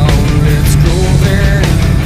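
Loud hard rock music.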